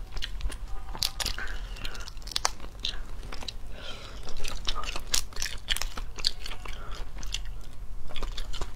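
Cooked crayfish shells cracked and peeled by hand, giving many irregular sharp cracks and crunches, along with biting and chewing.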